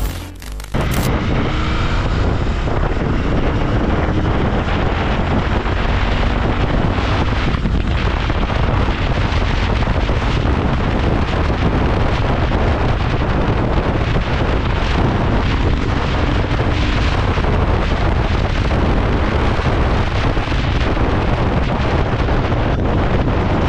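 Loud, steady wind rush over the microphone of a Royal Enfield Continental GT 650 ridden at speed, with the bike's parallel-twin engine running underneath.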